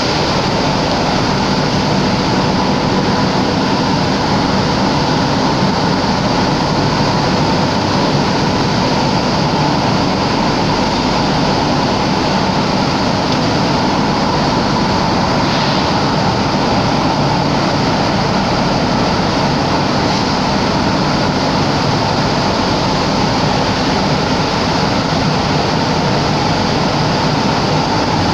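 Flour mill plansifter and surrounding mill machinery running with a loud, steady din, a constant hum held through it.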